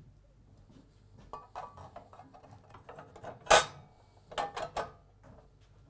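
A guard being handled and fitted onto a cylinder mower's belt housing: scattered light clicks and rattles, one sharp knock about three and a half seconds in, then a quick run of three knocks as it seats.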